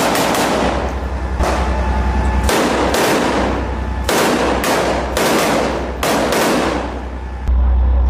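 Rifles firing single shots at an irregular pace, a dozen or so cracks each trailing an echo off the surrounding buildings. Near the end, drum-heavy music comes in.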